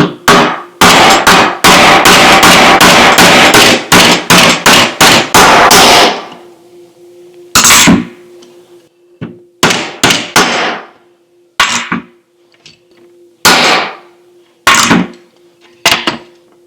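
Hammer blows driving the lever pivot pin out of a Carter dual-action fuel pump body: a fast run of sharp strikes for about six seconds, then single blows a second or two apart. The pin comes out with no trouble.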